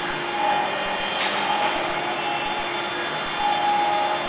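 CNC router spindle running steadily while its tapered engraving bit carves a wood relief, a constant high whine over the noise of the cut.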